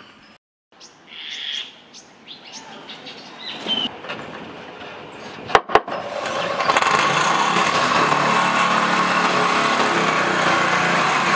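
A handheld power tool starts about six and a half seconds in and runs steadily at a constant pitch while a corrugated roof sheet is fixed to its steel purlins. Before it, birds chirp and two sharp clicks sound.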